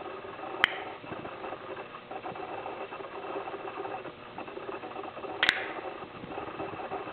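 Two sharp clicks, a short one about half a second in and a louder one near the end, over soft handling rustle: an Italian switchblade stiletto being handled and its spring-fired blade snapping open.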